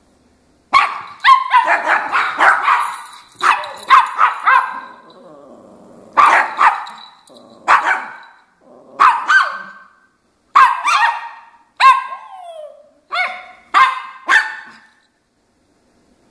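Small dog barking in quick runs of high, sharp yaps, starting about a second in and stopping near the end: play barking from a dog crouched in a play bow, inviting the other dog to play.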